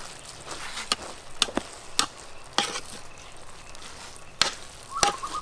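Metal spoon knocking and scraping against the side of a large metal pot while fried rice is stirred, about six sharp clinks at irregular intervals. Near the end a bird starts a quick series of repeated chirps.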